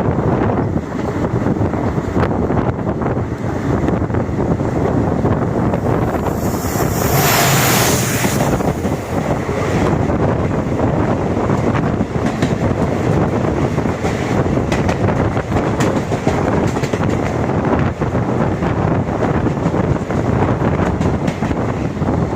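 Running noise of a moving passenger train heard from on board: a steady rumble of wheels on the track, with wind buffeting the microphone. A louder hissing rush lasts about two seconds, around seven seconds in.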